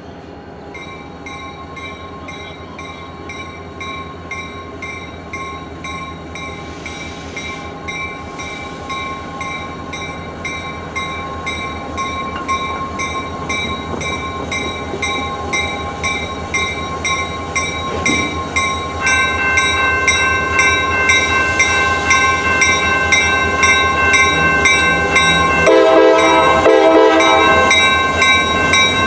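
EMD diesel freight locomotives with two-stroke engines approach, the low engine drone growing steadily louder, while a bell rings about twice a second. Near the end the locomotive's horn gives a short blast of about a second and a half.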